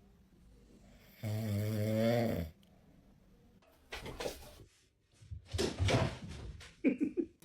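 Snoring: one long, steady snore a little after a second in, lasting over a second. In the second half comes a run of short, irregular noises of uneven loudness.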